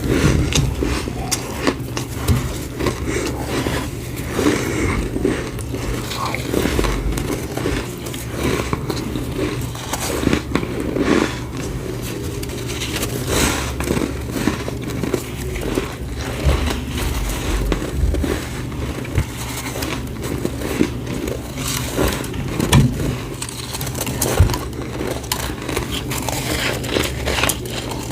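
Close-up crunching of a person biting and chewing snow, an irregular run of crisp crackles and scrapes, over a steady low hum.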